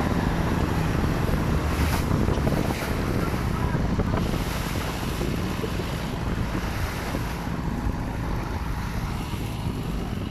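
Wind buffeting the microphone and water rushing along the hull of a moving boat, with the boat's engine running underneath; the noise eases a little toward the end.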